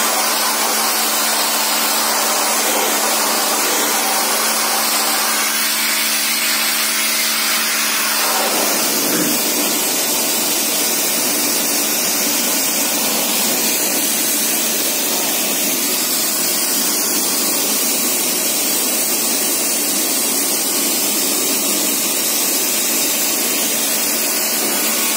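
Pressure washer running, its water jet hissing steadily. A low motor hum under the spray drops away about eight seconds in while the hiss carries on.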